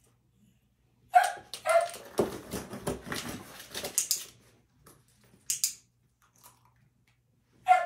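A Shetland sheepdog barks twice, sharply, about a second in, then comes about two seconds of clattering, scuffling noise, and another bark right at the end.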